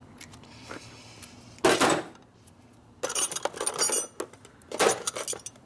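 Small loose metal parts clinking and rattling against each other in a plastic parts bin as they are rummaged through by hand, in a few short bursts with bright ringing clinks.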